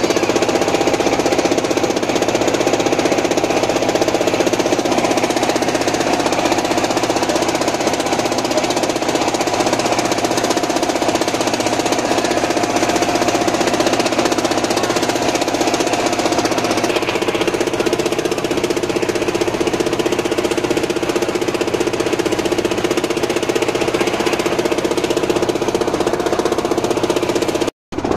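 Wooden river boat's engine running steadily under way, a loud, even knocking drone whose tone shifts slightly a little past halfway. It cuts out for a moment near the end.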